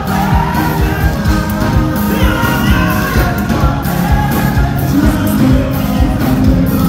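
Live gospel band music with singing, with keyboard, drums and bass guitar playing a steady beat.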